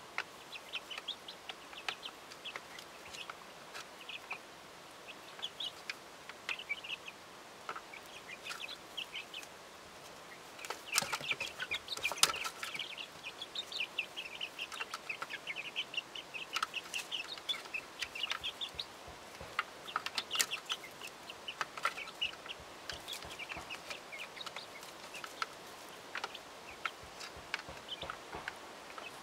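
Young chickens peeping in short high notes as they feed, with the taps of beaks pecking at spaghetti. The taps and calls get busier and louder for a moment about 11 seconds in.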